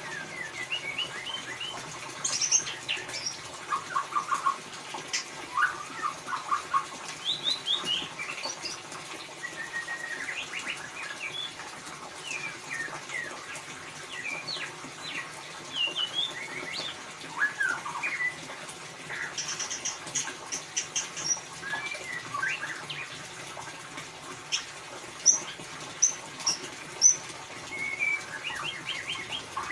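White-rumped shama (murai batu) singing in the 'ngeriwik' style: quick runs of short, sharp chirps and rapid trills, breaking off briefly and starting again throughout.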